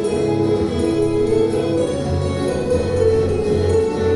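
Two acoustic guitars playing an instrumental duet, melody over a bass line.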